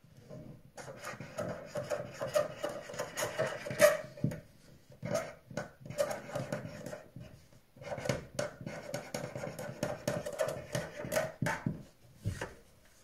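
A pen scratching across a sheet of paper on a wooden table in quick strokes of writing, in two long runs with a short pause between. A soft knock comes near the end.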